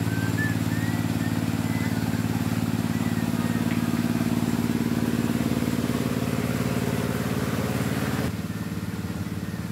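A small engine running steadily with a low hum, dropping in loudness about eight seconds in, with faint thin high chirps near the start.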